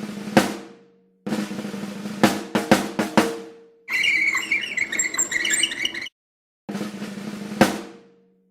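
Drums playing in short separate clips: rolls and rapid snare-type strokes, each clip ending in a louder hit that fades out, with brief silences between the clips.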